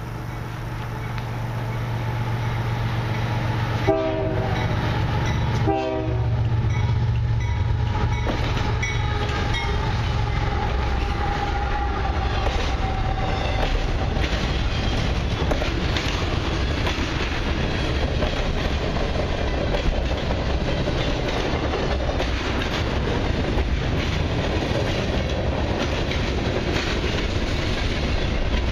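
Canadian Pacific diesel freight locomotives approach and pass, their low engine rumble building. Two short horn toots sound about four and six seconds in, and the locomotive pitch falls as they go by. After that, a long string of freight cars rolls past steadily, the wheels clicking over the rail joints.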